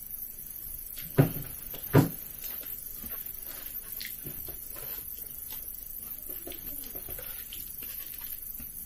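Two sharp knocks on the table, a little over a second in and again about a second later. Then quiet eating sounds: faint clicks of chopsticks and chewing of a sushi roll.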